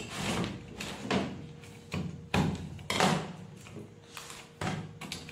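Screwdriver prying at the metal clips of a small mains power transformer as they are worked loose: a series of sharp, irregular clicks and knocks of metal on metal, about one a second.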